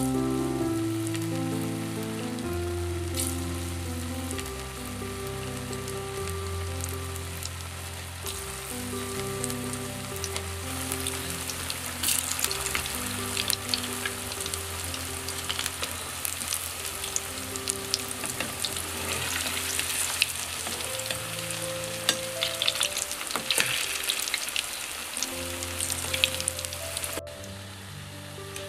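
Jackfruit balls deep-frying in coconut oil in a small metal wok: steady sizzling and crackling with many sharp pops, busiest in the middle. The frying cuts off suddenly near the end. Soft background music plays underneath.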